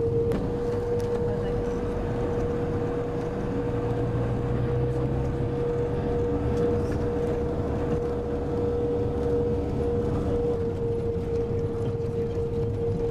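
Engine and road noise of a moving vehicle heard from inside the cabin: a steady low rumble with a constant humming tone on top.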